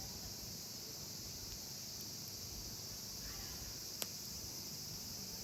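Steady, high-pitched chorus of insects in summer, with a single sharp click about four seconds in.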